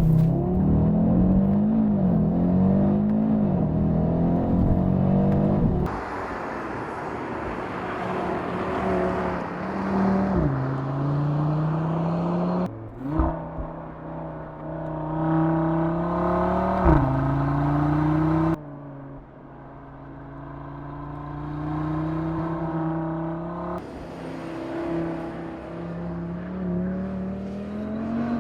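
Audi RS 3 Performance Edition's turbocharged five-cylinder engine accelerating hard through the gears, the revs climbing and then dropping at each upshift. It comes as several short driving clips joined by abrupt cuts.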